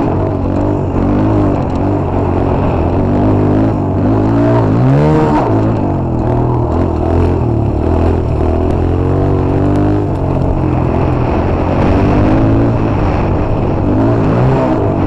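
Motorcycle engine running under way, its revs rising and falling as the throttle changes, with a quick rev up and back down about five seconds in.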